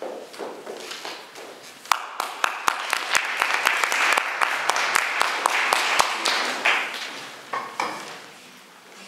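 Footsteps on a wooden stage floor, then an audience applauding for about five seconds before the clapping dies away.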